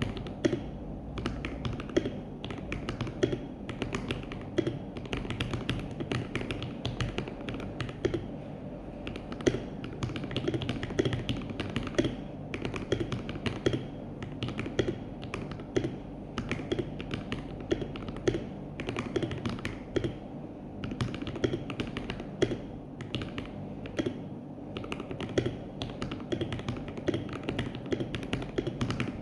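Continuous typing on a mechanical keyboard with lubed KTT Strawberry linear switches and Akko ASA-profile keycaps, a dense irregular run of key clacks several a second with occasional louder strokes.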